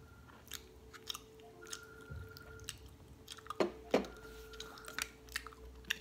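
Close wet mouth sounds of eating and licking: irregular soft smacks and clicks, the loudest two coming close together about three and a half seconds in.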